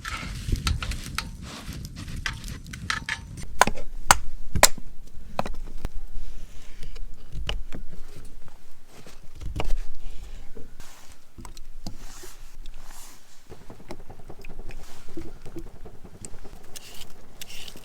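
Irregular sharp knocks and clicks, a few of them loud and close together about four seconds in.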